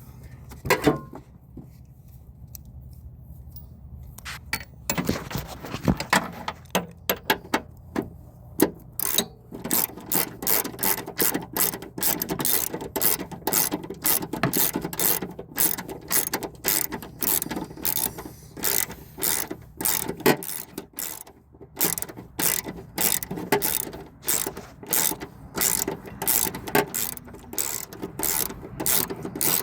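Hand socket ratchet clicking in long quick runs as a bolt on the engine mount is turned, with a short pause about two-thirds of the way through. There is a single knock about a second in.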